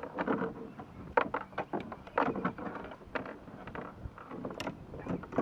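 Small waves slapping and splashing against the hull of a kayak, in short irregular splashes.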